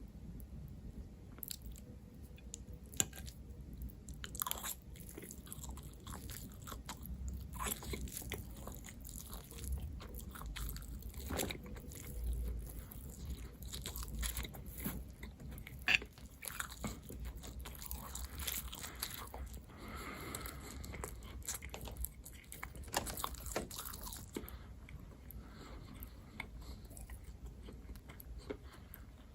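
Close-miked eating sounds: a person chewing and biting food, with many small irregular crunches and mouth clicks.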